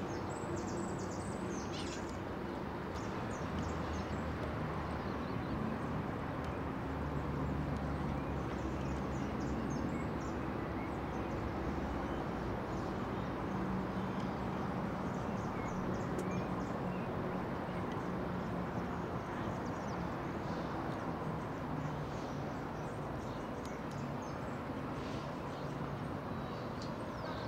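Polo match field ambience: a steady outdoor haze of noise with faint, scattered hoofbeats of polo ponies on the turf and the odd sharp tick.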